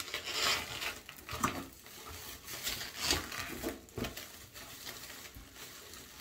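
Hands rummaging in a cardboard shipping box, rustling the packaging and handling the items inside in a few short bursts.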